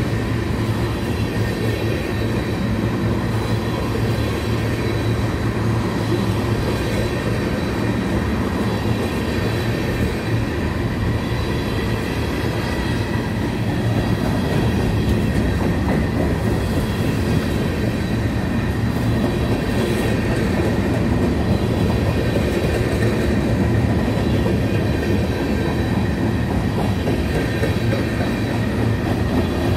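Freight train's flatcars loaded with trash containers rolling past, a steady rumble of steel wheels on rail with faint steady high tones over it. It grows a little louder about halfway through.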